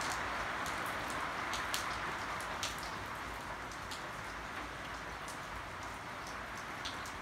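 Steady rain falling, with individual drops now and then tapping close by as sharp ticks.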